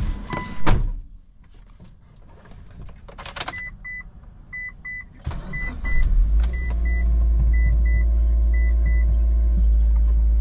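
A car door shuts with a thump about a second in, then a dashboard warning chime beeps in pairs. Around five seconds in the starter cranks and the 2006 Mitsubishi Lancer Evolution's turbocharged 2.0-litre four-cylinder catches and settles into a steady, loud cold-start idle.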